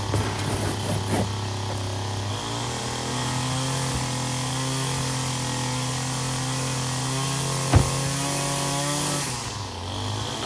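Small two-stroke engine running steadily. It speeds up a little about two seconds in and drops back near the end, with a single sharp click shortly before it drops.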